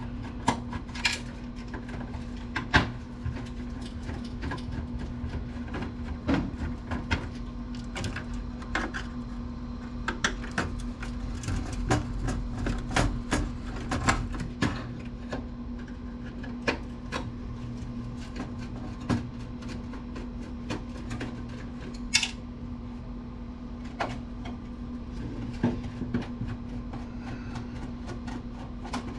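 Irregular clicks and light knocks of a screwdriver and loose parts being handled while a desktop computer is taken apart, over a steady low hum.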